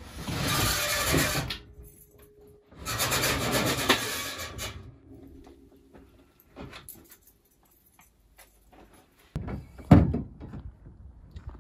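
A door being pushed open in two long noisy runs, then a sharp knock and clatter near the end, as of metal spray paint cans knocking together in a crate.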